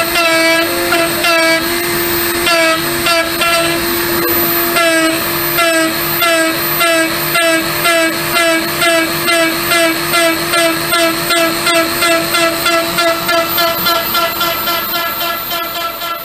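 CNC router spindle at about 18000 rpm driving a 2-flute 6 mm end mill through mild steel on an adaptive clearing pass. It makes a steady high whine and a cutting chatter that pulses about three times a second.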